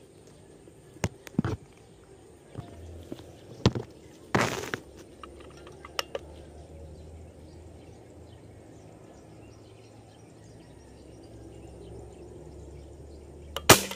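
Handling noises among the gear and shrubs: a few sharp knocks and a short rustle in the first half, then a loud knock near the end, over faint birds and insects.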